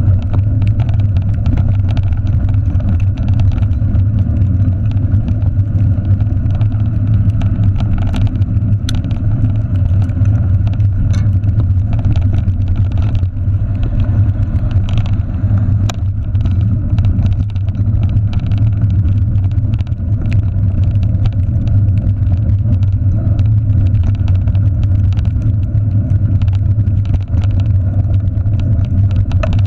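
Steady low rumble of a bicycle rolling fast over a rough, muddy dirt trail, picked up through a handlebar-mounted camera, with frequent small rattles and knocks from the bumps.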